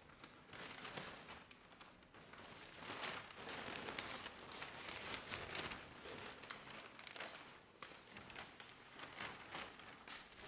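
A large sheet of paper rustling and crinkling as it is unfolded and handled, with scattered crackles, loudest around the middle few seconds.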